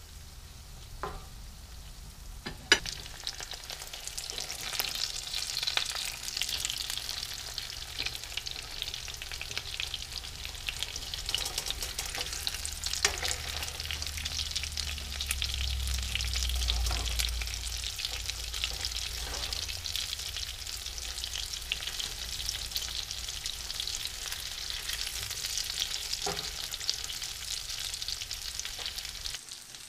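Breaded snapper fillets frying in oil in a nonstick skillet, a steady crackling sizzle. Now and then the spatula clicks and scrapes against the pan as the fillets are moved and turned.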